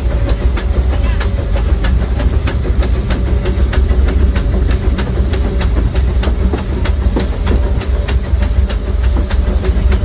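The Disneyland Railroad steam locomotive Fred Gurley and its train running at low speed, heard from right behind the engine: a loud, steady rumble of wheels on track with a regular run of sharp beats about three a second.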